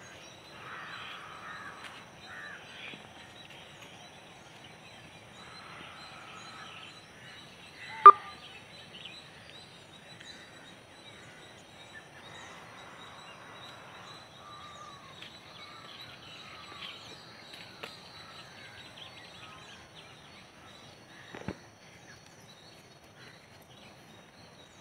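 Quiet outdoor garden ambience with faint, scattered bird calls in the distance. A brief sharp sound stands out about eight seconds in, and a fainter one comes near the end.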